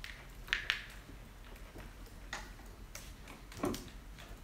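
Scattered clicks and taps from a laptop's keyboard and trackpad as it is worked: a quick double click about half a second in, a few lighter ticks, and a duller knock near the end.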